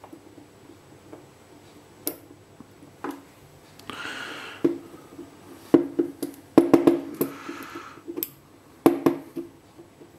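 Sharp metal clicks and taps from a Yale pin-tumbler lock cylinder being taken apart by hand: the plug is drawn out, and the spring-loaded driver pins and springs pop loose and drop onto the work surface. The clicks come scattered at first and bunch together in the second half, with two brief rustles.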